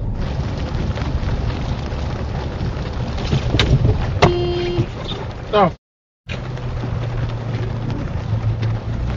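Steady road and engine noise inside a moving car, recorded by a dash cam. A brief steady beep about four seconds in, and a quick sweeping sound followed by half a second of silence at a cut about six seconds in.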